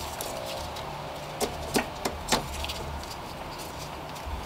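A few quick, light knocks and clicks from the serpentine belt being worked off the alternator pulley on a Toyota 2AZ-FE engine, four of them bunched between about one and a half and two and a half seconds in.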